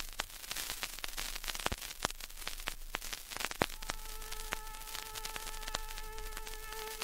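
Vinyl record surface noise: hiss with frequent crackles and pops. About four seconds in, a single held tuning note, an A, begins as a symphony orchestra starts tuning.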